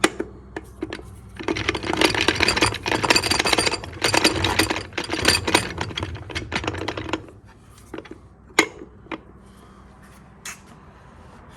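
Rapid metallic rattling for about six seconds, then a few separate clicks: TH400 transmission clutch plates being worked around to line up their splines.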